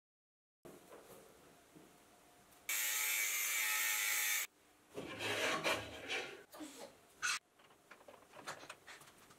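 A handheld angle grinder cutting through a steel rod: a loud, steady grinding hiss lasting about two seconds. Around it there is quieter rubbing, scraping and clicking of small parts being handled, with one sharp click about seven seconds in.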